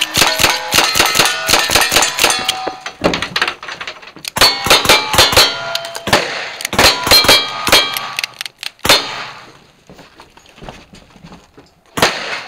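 Fast strings of gunshots, each with the ringing clang of a steel plate target being hit, starting with a lever-action rifle. A few seconds' pause with only faint handling sounds, then another shot near the end.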